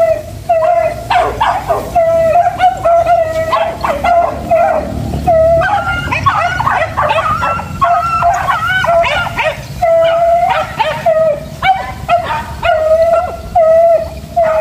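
A hunting pack of beagles and village dogs baying and yelping in a continuous, overlapping chorus. The cries are loudest and most crowded from about six to ten seconds in.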